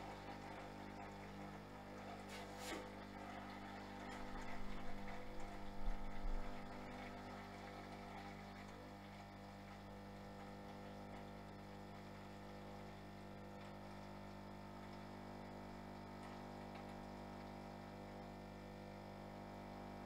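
Zelmer ZCM7255 espresso machine's pump running with a steady hum while espresso brews into the cup. A few louder knocks come about four to six seconds in.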